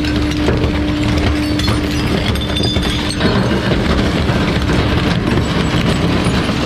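Bulk waste truck's engine and hydraulics running under load while bulky wooden waste cracks and splinters as it is crushed. A steady whine cuts out about three seconds in.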